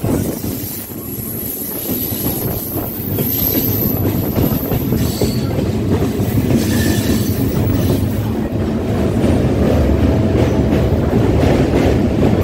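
Two electric multiple-unit (EMU) local trains passing each other on a steel truss bridge, heard from an open door of one of them: a loud, steady rumble and rattle of the oncoming EMU's coaches and wheels on the rails close by. A thin high squeal runs through the first few seconds.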